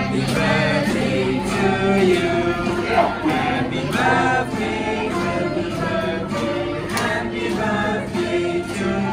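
A group of voices singing a birthday song to a child as a cake is served, over a steady musical backing.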